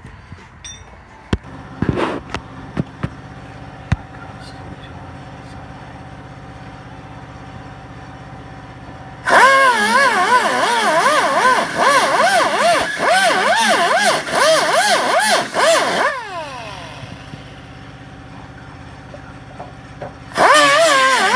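Knocks and clicks, then a handheld power tool's motor runs loudly for about seven seconds, its pitch wavering up and down as it bites into metal, and winds down with a falling whine. It starts again near the end.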